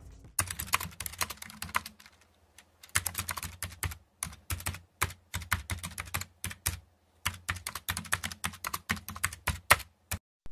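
Computer keyboard typing: quick runs of key clicks with short pauses between them, over a faint low hum.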